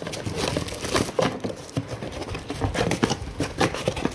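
Plastic wrapping crinkling and cardboard packaging rustling in quick, irregular crackles as a camera body wrapped in plastic is handled and lifted out of its box.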